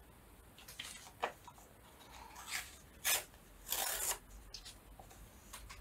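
Paper being handled on a desk: a few brief rustles and rubs, the loudest two about three and four seconds in.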